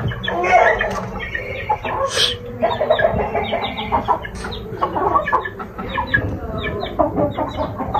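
Chickens clucking: many short, repeated calls, with a few sharp clicks among them.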